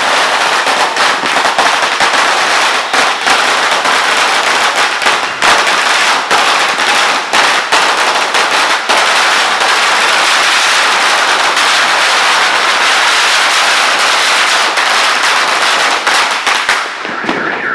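A long string of firecrackers going off on the street in a rapid, continuous crackle of small bangs, dying down near the end.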